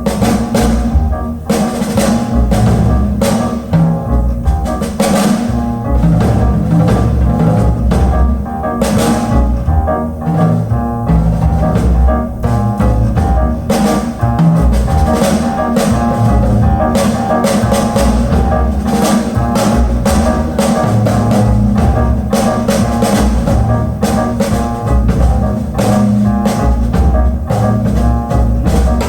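Music with a drum kit and a deep bass line, played back loud through a hi-fi system of VAC electronics driving Gershman Acoustics loudspeakers.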